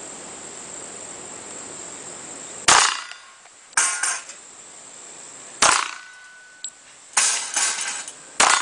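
Three shots from a Colt Combat Commander .45 ACP pistol, about three seconds apart, with shorter metallic clatter between them and a brief ringing tone after the second shot, typical of rounds striking steel targets.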